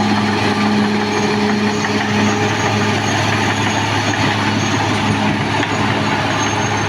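Caterpillar D6R XL bulldozer's diesel engine running steadily, with a constant low hum and a dense mechanical rattle over it.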